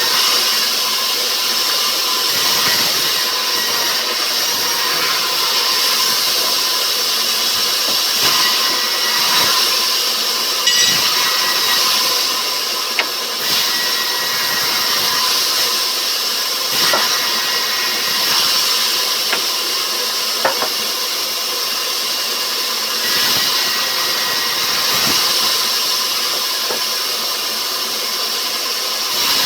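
Sawmill machinery running steadily with a loud, even hiss and a faint steady hum, broken by a few short sharp clicks.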